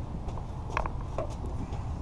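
A few light clicks from a car door lock mechanism and its linkage clip being handled and worked by hand, over a steady low background rumble.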